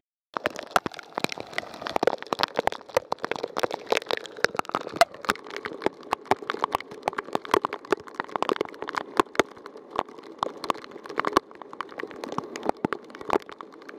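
Rain shower, drops striking hard surfaces of a catamaran close by: a dense run of quick, irregular taps that starts about half a second in.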